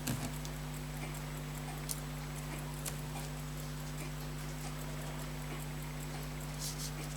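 Steady low electrical hum, with a few faint, irregularly spaced light clicks and taps of small watch parts being handled on the bench.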